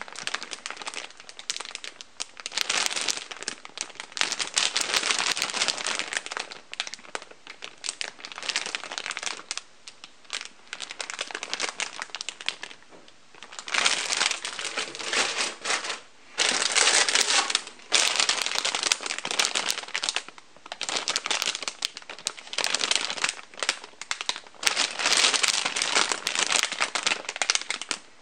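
Clear plastic bags crinkling as the plastic model-kit runners sealed inside them are handled and turned, in bursts with short pauses.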